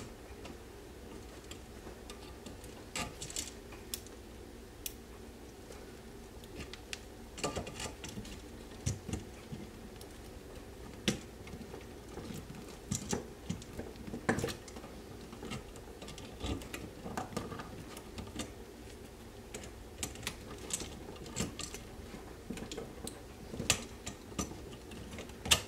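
Scattered small clicks and taps of a screwdriver working on an outlet's screws in a metal electrical box, irregular and a few seconds apart, over a steady low hum.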